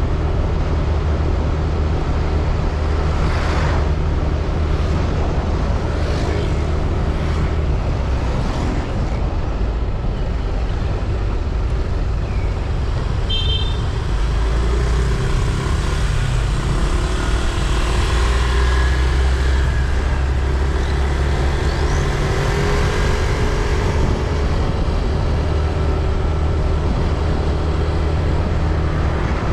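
Motorbike engine running steadily while riding along a road in traffic, with road noise throughout; the engine note shifts in pitch about halfway, near a brief high beep.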